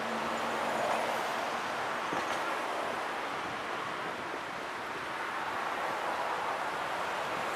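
Road traffic crossing a bridge: a steady rush of tyres and engines from cars and a bus, rising and falling as vehicles pass.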